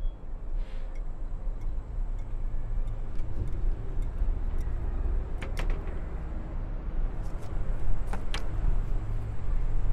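A steady low outdoor rumble, with a few sharp clicks and taps as a coffee mug and a stack of photographs are handled at a glass table, the clearest about five and a half seconds in and twice around eight seconds in.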